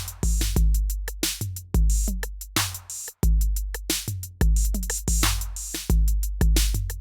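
Electronic outro music built on a drum machine: a steady beat of deep bass-drum kicks with crisp hi-hat clicks.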